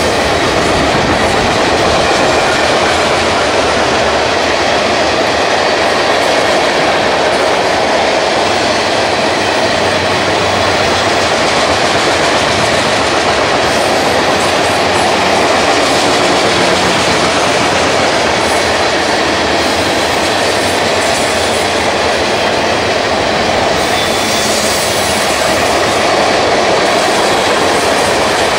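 Freight train cars rolling past, their wheels clacking steadily over the rail joints.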